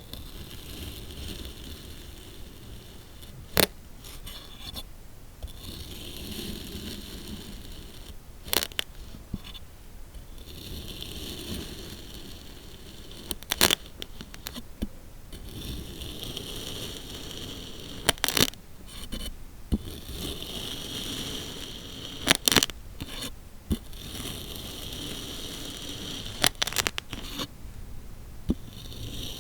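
Kinetic sand being cut with a blade: a gritty scraping as it slices through the packed sand, with a sharp click about every four to five seconds.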